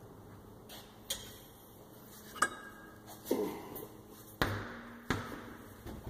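Lug nuts and hand tools clinking as a car wheel comes off: several sharp metallic clicks and knocks, a short ring about three seconds in, and a heavier thump about four and a half seconds in.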